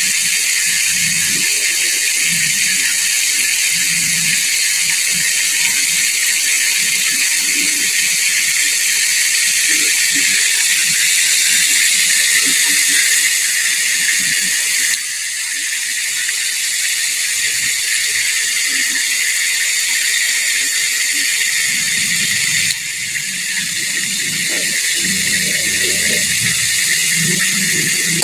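Hot cooking oil sizzling steadily around a whole chicken deep-frying in a pot.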